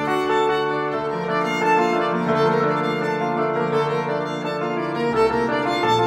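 Violin playing a bowed melody in held notes, with piano accompaniment beneath it.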